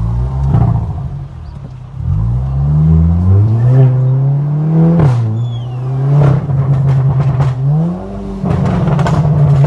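Volkswagen Golf R's turbocharged 2.0-litre four-cylinder accelerating hard. The engine note climbs, drops sharply at a gear change about five seconds in, holds, then climbs again near the end, with sharp cracks from the exhaust along the way.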